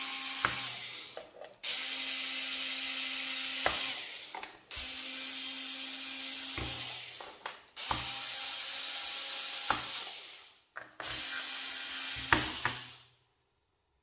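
A cordless electric screwdriver runs in repeated bursts of about two seconds with short pauses between them, unscrewing the screws of a laptop's bottom cover. A sharp click comes near the end of most bursts. The motor stops about a second before the end.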